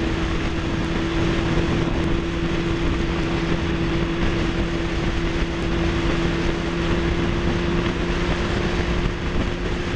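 Motorcycle cruising steadily at highway speed: an even engine hum that holds one pitch under a continuous rush of wind and road noise.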